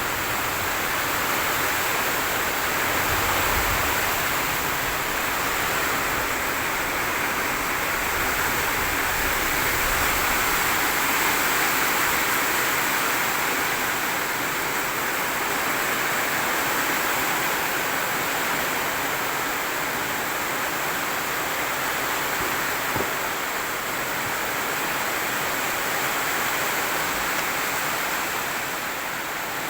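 Steady rushing noise that stays loud and even throughout, with no speech.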